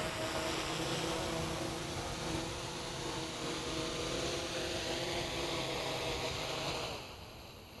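Tarot FY690S hexacopter's six electric motors and propellers humming steadily as it hovers down to land. The hum drops away about seven seconds in as it settles onto the pad.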